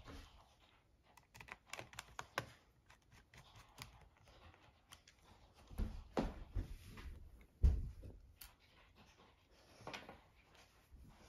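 Small tools and laptop parts being handled on a wooden tabletop: scattered light clicks with a few dull knocks, the heaviest about six seconds and nearly eight seconds in.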